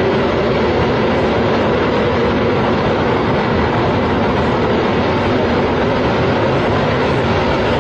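A steady, loud roar of noise that stays even throughout, with no distinct knocks, tones or breaks.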